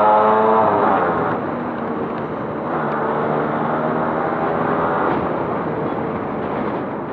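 Yamaha RX two-stroke single-cylinder motorcycle engine running under way: held at a steady pitch, easing down about a second in, then pulling steadily again for a couple of seconds midway, over road and wind noise.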